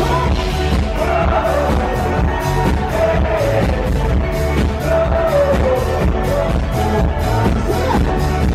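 Live rock-pop band playing loud, with a male singer's vocal over drums keeping a steady beat.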